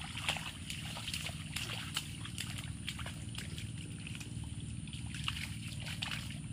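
Children splashing and sloshing in a shallow muddy puddle, many small irregular splashes and slaps of water, over a steady low background rumble.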